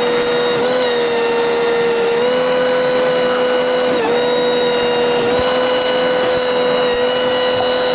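Small motor of a power tool running at a steady high whine, dipping briefly about four seconds in.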